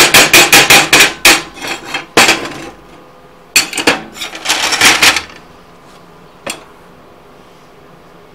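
Slag hammer tapping rapidly on a flux-core weld on a steel plate, chipping off the slag at about seven blows a second, slowing and stopping after about two seconds. A second or so later comes a short spell of clattering and scraping as pliers are laid down on the steel bench, then one single knock.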